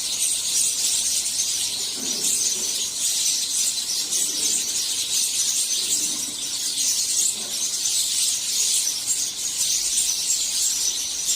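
A flock of house sparrows chirping together: a dense, continuous high-pitched chatter of many overlapping chirps.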